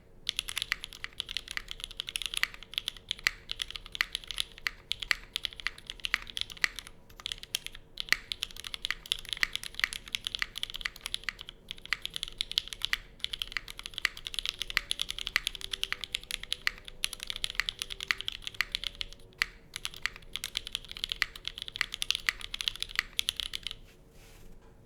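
Continuous typing on a Monokei Kei mechanical keyboard with lubed and filmed SP Star Meteor White switches, an aluminium plate and GMK Dandy keycaps. It is a fast run of keystrokes with a few brief pauses, and the typing stops shortly before the end.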